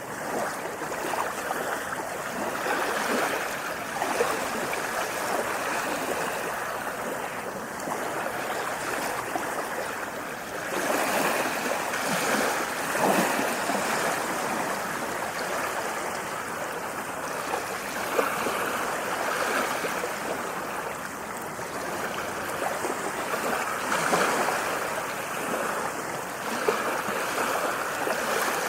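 Ocean waves washing in: a continuous rushing of water that swells and eases every several seconds.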